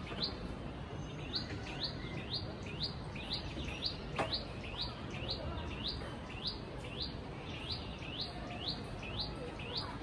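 Songbird in the trees repeating a short chirp that sweeps down in pitch, about twice a second, over steady background noise. A longer falling whistle comes about four seconds in.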